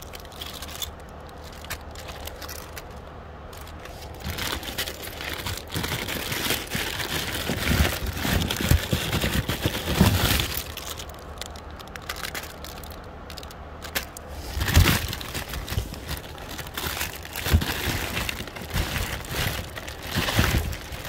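Hand rummaging through a cardboard box of carded fashion jewelry: cardboard display cards and plastic bags crinkling and rustling, with small clicks and knocks. It comes in fits and starts and gets busier from about four seconds in.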